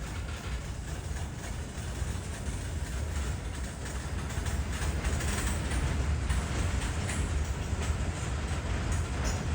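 A train rolling past with a steady low rumble and wheels clicking over the rail joints, getting a little louder about halfway through.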